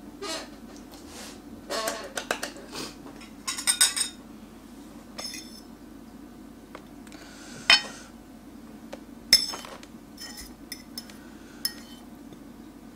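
Metal fork clinking and scraping against bowls as noodles are lifted and moved from one bowl to another: scattered short clicks and clatters, a couple of them sharper about two-thirds of the way through, over a steady low hum.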